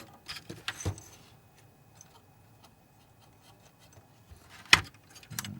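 Light clicks and taps from handling a DLP projector's colour wheel assembly as it is fitted and turned by hand. A few clicks come in the first second, then one sharp click near the end.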